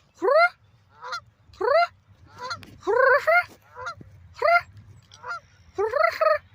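Canada geese honking: about ten loud honks, each rising sharply in pitch, some following close on each other in pairs.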